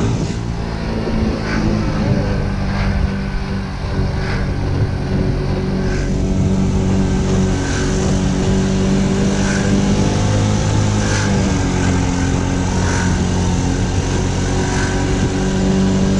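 Scooter engine running at a steady low road speed, its note easing off briefly twice.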